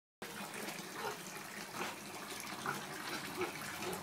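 Water running steadily: a constant rush of flowing water, left running as the cue this mini pig waits for before she will relieve herself.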